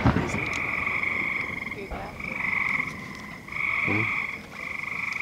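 Frogs trilling in chorus: long, even, high trills about a second each, following one another with short breaks.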